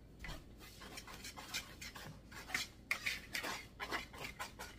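Wire gravy whisk stirring dry flour dredge in a bowl: quick, irregular scraping and light clicking of the whisk's wires against the bowl, several strokes a second.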